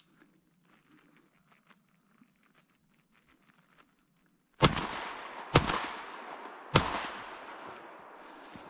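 Three shotgun shots fired in quick succession, about a second apart, each followed by a long echo dying away.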